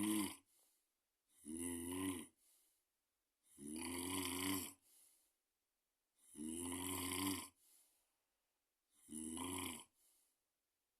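Steady snoring: a loud snore about a second long every two to two and a half seconds, five in all, each followed by a short, faint breath sound.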